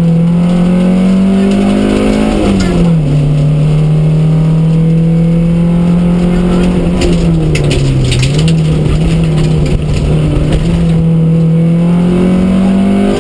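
1400cc Mark 2 Vauxhall Astra's four-cylinder engine running hard, heard from inside the cabin. The revs climb steadily, drop sharply about two and a half seconds in, dip briefly around eight seconds, then climb again to another sharp drop right at the end.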